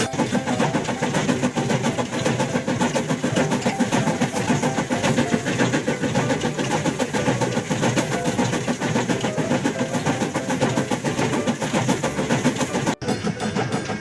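Battery-operated toy train engine running along wooden track pulling its cars, the small motor whirring and the wheels rattling steadily, with a sudden short break near the end.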